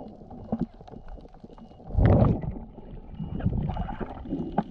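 Muffled underwater sound heard through a camera's waterproof housing as a freediver swims: water moving against the housing with scattered knocks, and a louder low surge about two seconds in.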